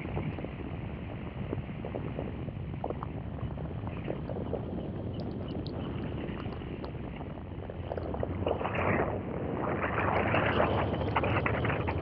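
Gyroplane in flight: a steady engine drone with wind rushing over the microphone, in louder gusts from about eight seconds in.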